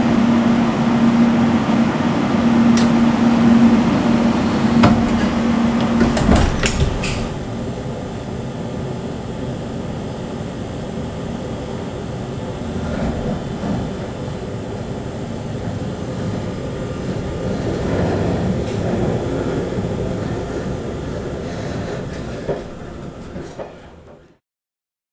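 JR Shikoku 8000 series electric trains at a station, heard from inside a car. A steady hum with a few sharp clunks gives way after about six seconds to the lower, even rumble of a train moving alongside, and the sound fades out near the end.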